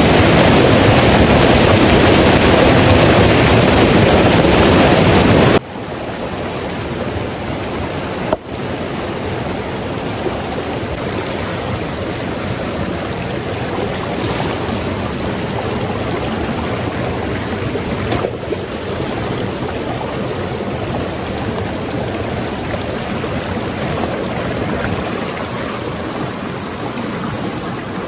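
Rushing water of a rocky mountain river, a steady wash of noise. It is loud at first and drops suddenly to a lower, steady level about five seconds in.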